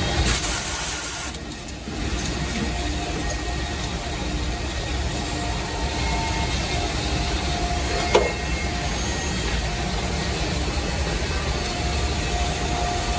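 Automatic two-head drilling and threaded-insert machine running, its electric drill motors humming steadily. A loud hiss lasting about a second comes near the start, and a single sharp clack about eight seconds in.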